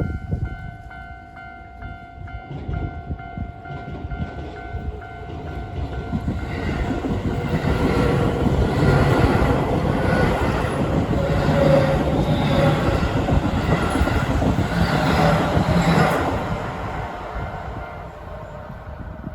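Japanese level-crossing warning bell ringing in a steady, evenly repeating tone, then a train passes over the crossing. The train noise builds about a third of the way in, is loudest through the middle, and dies away near the end.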